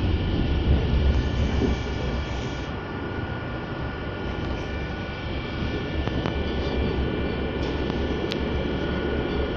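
Running noise of a moving passenger train heard from inside the carriage: a steady low rumble of wheels on track with a few steady high whining tones, a little louder for the first couple of seconds and with one sharp click about eight seconds in.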